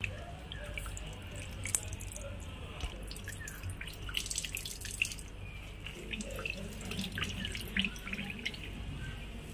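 Water splashing and dripping as fresh chhena curds are rinsed with water poured over them, then wrung in a cloth so the water streams and drips into a stainless steel tray.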